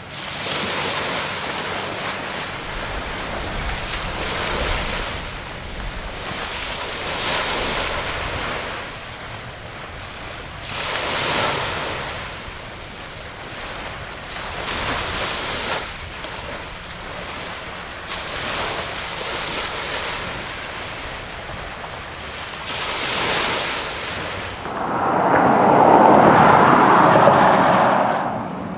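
Water wash and wind on the microphone, swelling and fading every few seconds, with a louder rushing noise for about three seconds near the end.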